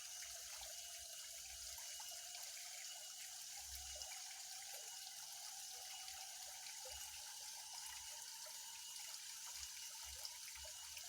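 Faint, steady outdoor background at a pond: a trickling, water-like hiss with small high chirps scattered through it and a few soft low thumps.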